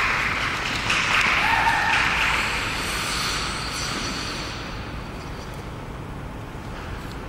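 Applause from a small group with a brief cheer about a second and a half in, fading away over about five seconds.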